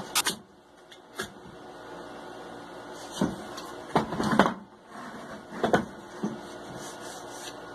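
Freshly resawn oak blocks being handled and set down on a table saw's metal table: several short wooden knocks and clatters, with a longer bout of clattering about four seconds in, over a steady low background hum.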